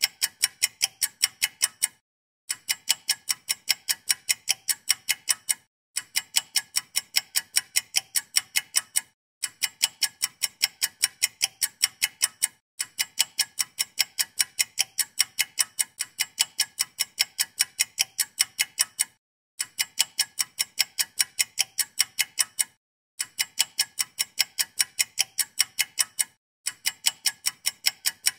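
Fast, even clock-like ticking, about five ticks a second, in runs of about three seconds broken by short regular gaps: a looped ticking sound effect.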